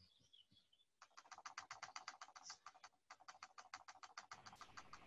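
Faint rapid clicking at a computer, about ten even clicks a second, starting about a second in and pausing briefly around three seconds in.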